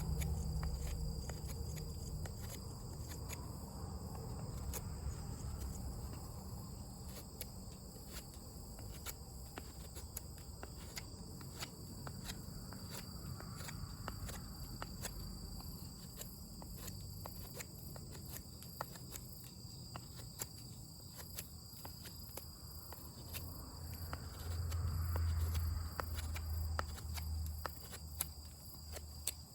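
Crickets chirping in steady high-pitched drones, with many scattered sharp clicks and pops typical of a wood campfire crackling. A low rumble rises briefly about 25 seconds in.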